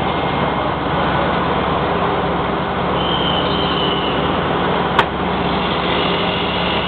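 Mobile crane's diesel engine running steadily while lifting a steel column into place, with a single sharp knock about five seconds in.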